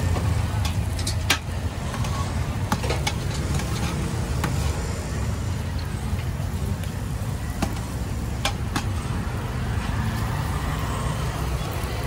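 Metal spatula tapping and scraping on a dosa griddle, with several sharp clicks, the loudest about a second in. Underneath is a steady low background rumble.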